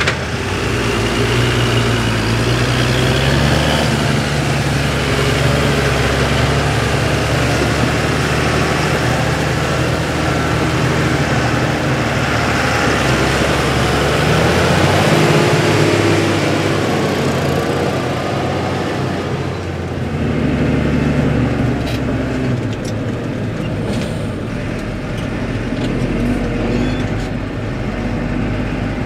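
Fendt 926 Vario TMS tractor's diesel engine running steadily while it hauls a loaded Benzberg dumper trailer, its note rising and falling a little. Near the end the engine is heard more muffled, as from inside the cab, with a few sharp clicks.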